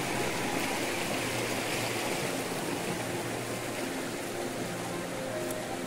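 Shallow rocky stream running steadily over stones and small rapids.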